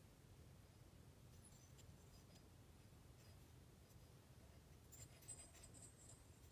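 Near silence: faint room tone, with a few soft clicks and rustles of the piston being handled in the fingers, about two seconds in and again about five seconds in.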